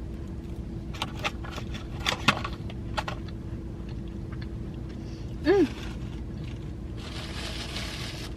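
A person eating fruit pie: scattered chewing clicks and mouth sounds, a short hummed "mm" about five and a half seconds in, and a soft hiss near the end, over a steady low hum.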